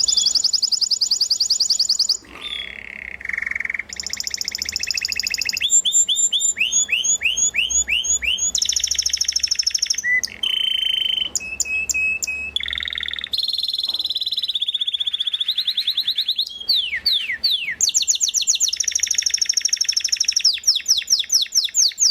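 Spanish Timbrado canary singing: a continuous run of fast rolled trills, each held for a second or two before switching abruptly to the next, with some quick falling sweeps.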